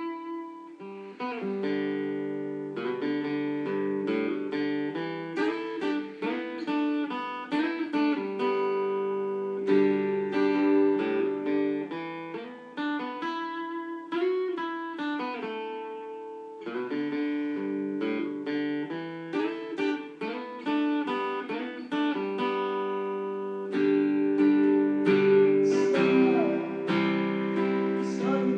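Acoustic guitar played solo, a mix of strummed chords and picked notes that ring on.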